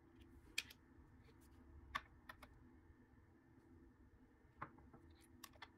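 About half a dozen light clicks and taps, some in quick pairs, as small robot parts, a radio receiver and a brushless outrunner motor, are lifted off and set down on a glass kitchen scale, over near silence.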